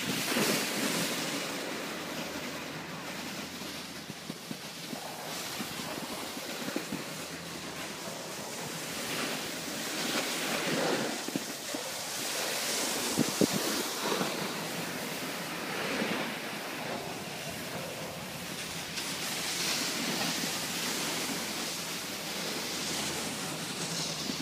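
Snowboard sliding over groomed snow, a rushing scrape that swells and fades as the rider carves turns, with wind buffeting the microphone.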